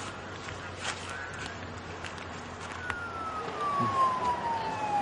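An emergency vehicle's siren wail starts about three seconds in: one long tone sliding slowly down in pitch. Before it there is only faint background noise with a few clicks.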